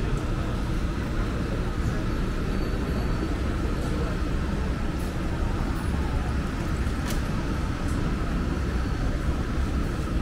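Steady city street ambience dominated by a low traffic rumble, with two brief clicks about five and seven seconds in.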